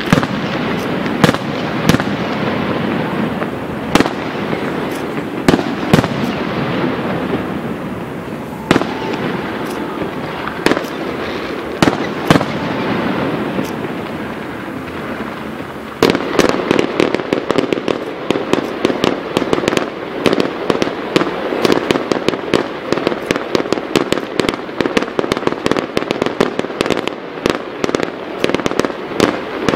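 Fireworks display: shells burst with a sharp bang every second or two. About halfway through, this suddenly gives way to a dense barrage of rapid bangs.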